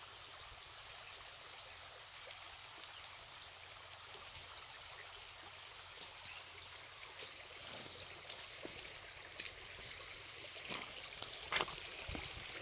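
Muddy storm-runoff stream running through a stone culvert: a steady rush of flowing water, swollen after a heavy rainstorm. A few short, sharp ticks come through in the second half.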